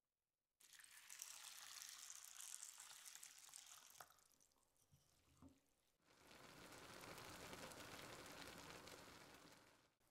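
Faint sound of water being poured into a glass saucepan of raw green lentils. After a quieter stretch with a few clicks, the lentils simmer in the water over a gas burner with a steady bubbling.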